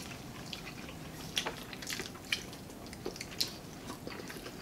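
Close-up eating: people chewing and biting into fried dried fish and rice, with short crisp crackles and mouth sounds scattered irregularly throughout.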